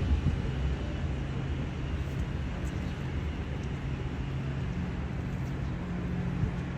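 Steady low rumble of motor vehicle engines and road noise, with an even engine hum and no sudden events.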